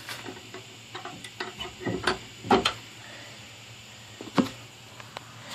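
Chicken house door being latched: a series of scattered clicks and knocks as the hook is worked into place.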